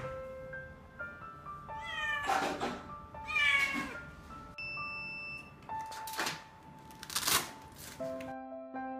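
Injured kitten with both rear legs fractured meowing several times, its two clearest meows drawn out and falling in pitch about two and three seconds in, with more loud cries about six and seven seconds in. Soft piano music plays underneath.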